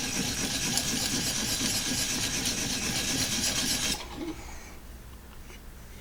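Abrasive of a Vipersharp guided-rod sharpener being stroked along a knife edge, a steady scraping that stops suddenly about four seconds in and is followed by a few faint ticks. The strokes are grinding the secondary bevel to raise a burr, at the tip after working the heel.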